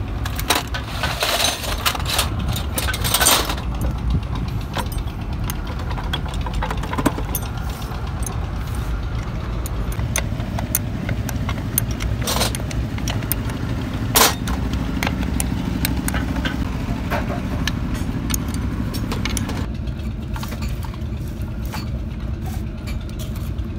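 Metal clinks of a spanner and loose bolts against a truck gearbox casing as it is worked on by hand: a cluster of clinks in the first few seconds, then a few single sharp ones, the loudest a little after the middle. A steady low rumble runs under them throughout.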